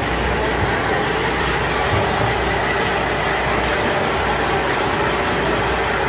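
Boat's inboard engine running steadily in its flooding engine compartment, heard through the open hatch. The compartment is taking on water.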